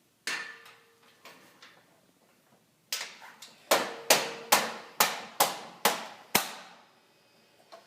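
Sharp knocks on a metal shelving fixture, with a faint metallic ring. A few scattered taps come first, then about halfway through a run of about seven hard strikes at roughly two to three a second, as the top piece is knocked into its tabs.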